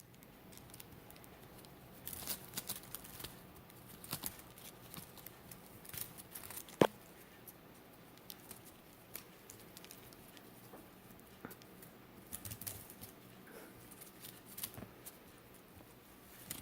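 Soft rustling and scattered light clicks of handling and movement, with one sharp click about seven seconds in.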